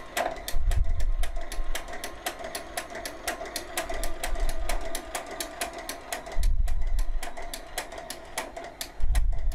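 Knitting linker (kettel machine) stitching a seam in knitted pieces: a rapid, even run of clicks, about six a second, over a steady hum. A low rumble comes in briefly three times.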